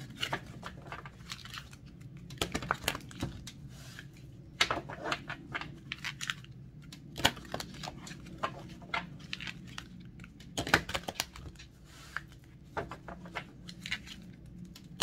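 Tarot cards being handled and shuffled: irregular soft snaps and rustles, a few sharper than the rest.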